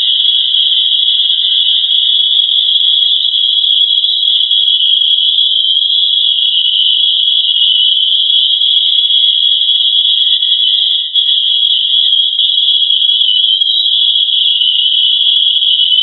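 Steady, high-pitched continuous tone with a fainter lower tone beneath it, presented as NASA's recording of the sound of the Earth's vibration.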